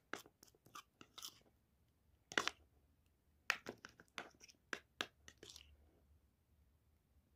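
Metal spoon stirring a thick creamy paste in a ceramic bowl: soft, irregular clicks and scrapes against the bowl, coming in short bunches with pauses between.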